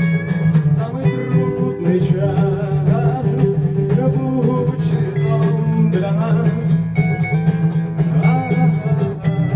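A song played by a small band: guitar with a voice singing over it, a steady low note underneath and a regular percussive beat.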